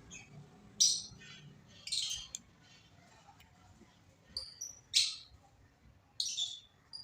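Birds chirping: short, high calls every second or so, a few of them pitched.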